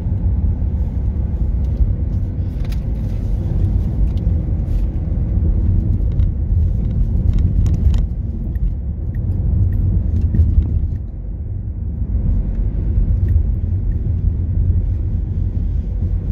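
A car driving along, heard from inside the cabin: a steady low rumble of engine and road noise. A few faint clicks come through in the first half, and the rumble dips briefly about eleven seconds in.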